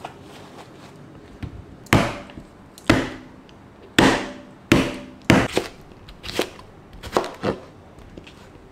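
Santoku knife chopping cucumbers on a cutting board: about nine sharp, unevenly spaced chops, starting about two seconds in.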